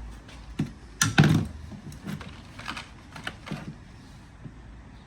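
Spark plugs being handled: a few scattered light clicks and taps, the loudest about a second in.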